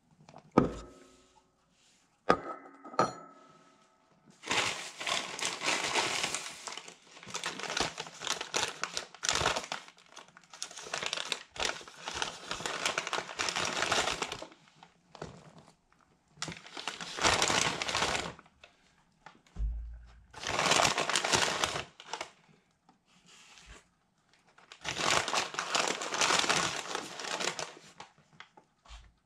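A Popeyes paper sandwich bag crinkling and rustling in repeated bursts as it is handled and opened. A few short knocks with a brief ring come in the first three seconds.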